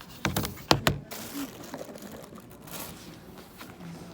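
A few sharp knocks close together, the loudest about three quarters of a second in, then light rustling, like objects being handled.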